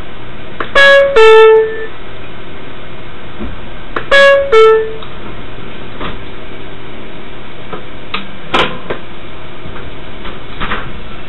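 New York City subway car's door-closing chime: a two-note ding-dong falling in pitch, sounded twice about three seconds apart, warning that the doors are about to close. A steady hum from the stopped train runs underneath, with a sharp click about eight and a half seconds in.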